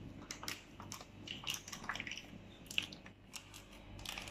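Brown paper tulip muffin liner crinkling and crackling in irregular faint bursts as it is peeled open by hand around a freshly baked, still-hot muffin.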